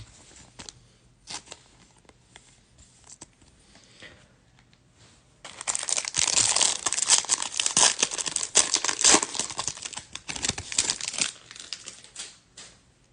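Foil wrapper of a Bowman Draft baseball card pack being torn open and crinkled: a loud crackling that starts about five seconds in and lasts about six seconds. Before it there are a few faint rustles and clicks.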